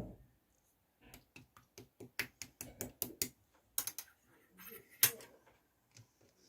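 Slime being mixed and squished by hand, giving a quick run of crisp clicks and pops, several a second, after a dull thump at the start; a few louder pops follow near the end.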